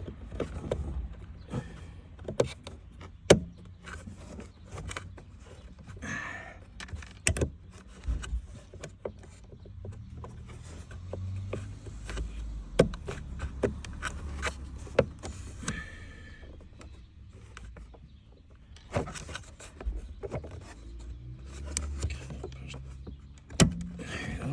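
Irregular sharp clicks and knocks of hands and metal parts working at a car's gear shifter, pushing the short throw shifter's retaining clip into place. The loudest knock comes about three seconds in, over a low handling rumble.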